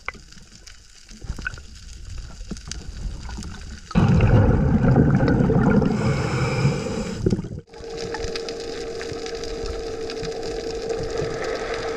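Scuba diver breathing through a regulator underwater: faint crackling and clicks, then about four seconds in a loud rush of exhaled bubbles that stops abruptly, followed by a quieter stretch with a steady hum.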